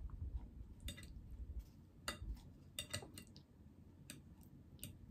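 A few faint, scattered clicks and taps of an eating utensil against a food container as a helping of mac and cheese is scooped up.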